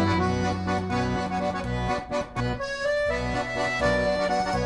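Background accordion music: a melody over held bass notes.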